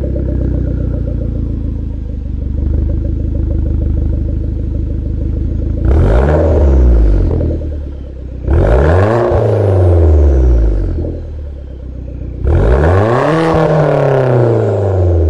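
Hyundai Genesis engine through an Exceladyne turbo-back exhaust, idling steadily, then revved three times, each rev climbing in pitch and dropping back to idle.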